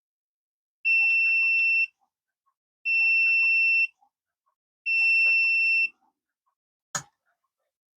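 Sunlu filament connector's buzzer sounding three long, high electronic beeps, each about a second long and two seconds apart, then a single sharp click near the end.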